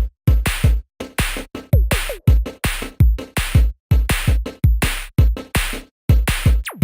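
Electronic background music with a strong drum-machine beat: deep kicks and bright snare or clap hits in a steady rhythm, with a couple of short full stops and a falling sweep near the end.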